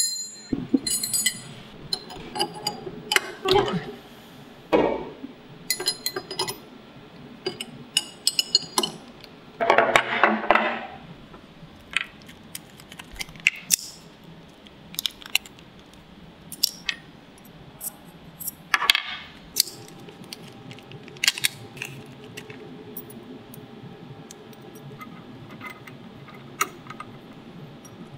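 Scattered metal clinks and taps from a CNC router tool change: collets, a wrench and cutter bits handled and set down on the table, and the bit fitted into the spindle's collet nut. Two longer rasping sounds come about ten and nineteen seconds in.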